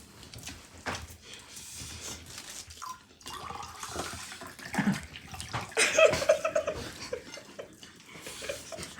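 People eating spicy fried rice, with wet chewing and mouth noises close to the microphone and a louder stretch about six seconds in.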